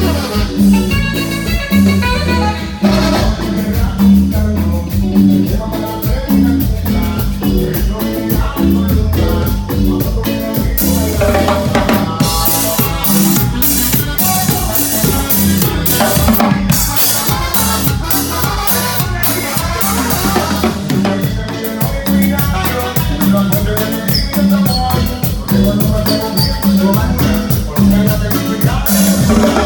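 Latin dance band music played by a group, with drum kit, bass and percussion keeping a steady, even beat.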